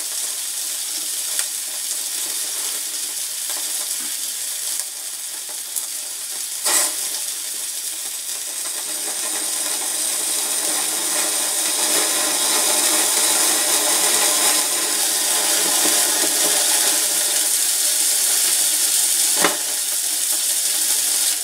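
Meat sizzling on a small gas-fired grill with the burner hissing. The sizzle grows louder from about halfway through as fat drips and flares up in flames. There is a sharp click about seven seconds in and another near the end.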